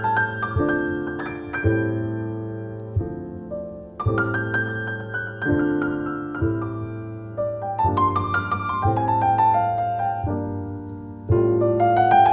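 Grand piano playing an instrumental passage: full chords struck every second or so, each left to ring and fade, with a melody line above. A louder chord comes in near the end.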